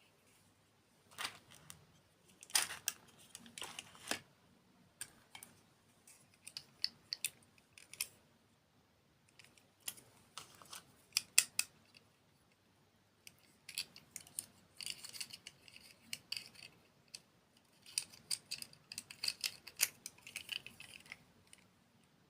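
Close-miked crisp clicks and crackles in irregular clusters, with short quiet gaps between them: ASMR handling and eating sounds.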